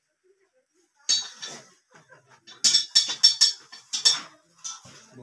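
Kitchen vessels on a shelf clinking and knocking as a rod probes among them: a run of sharp clinks that starts about a second in and is busiest around the middle.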